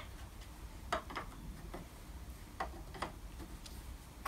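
A few faint, irregular small clicks and ticks of metal parts being handled during assembly of the drill-press table's ballscrew and bearing.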